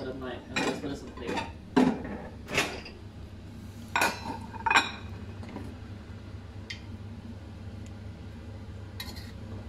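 Wooden spatula and metal tongs knocking and scraping against a stainless steel wok while tossing fried rice noodles: about five sharp clanks in the first five seconds, then only a couple of light clicks over a steady low hum.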